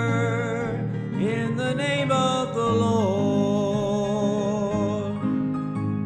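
Gospel song: a singer holds long, wavering notes over steady instrumental accompaniment, sliding to a new pitch about a second in and again about three seconds in.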